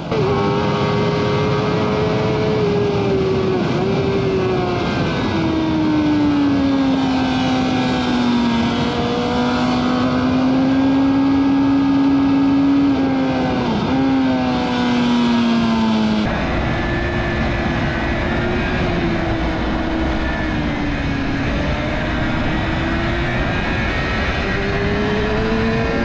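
Suzuki GSX-R 750 inline-four engine running hard on track. Its note falls and climbs several times as the throttle is rolled off and opened again through corners, over a steady rush of wind.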